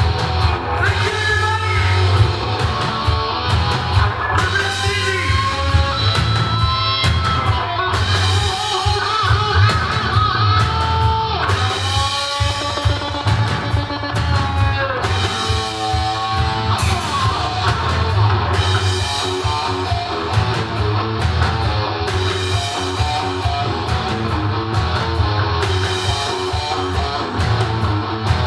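Live rock power trio: electric guitar playing a lead line with pitch bends and quick runs over bass guitar and a drum kit.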